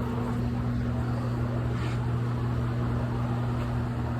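Steady low mechanical hum with an even background rumble and no shots or other sharp sounds.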